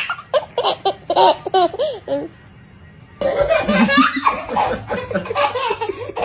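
High-pitched human laughter in a quick run of short bursts, then after a brief pause more laughter, denser and louder, mixed with voices.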